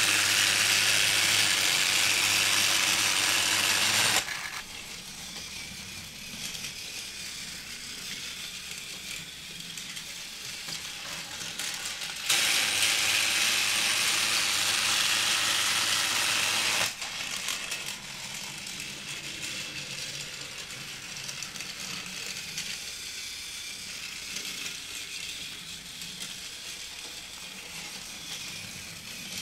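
Battery-powered Trackmaster Thomas toy engine running along plastic track with its cargo car: a steady whirr and rattle from the small geared motor. It turns much louder for two stretches of about four seconds, at the start and again about twelve seconds in, each cutting off suddenly.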